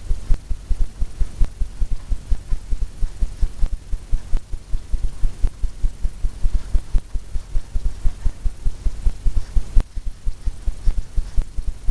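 Paintbrush stroking and dabbing quickly against a stretched canvas on an easel, heard as a rapid run of low thumps, several a second.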